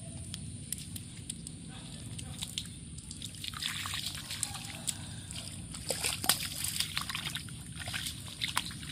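Children's hands, knees and feet sloshing and splashing in a shallow muddy puddle: irregular small splashes that get busier and louder after a few seconds, over a steady low background noise.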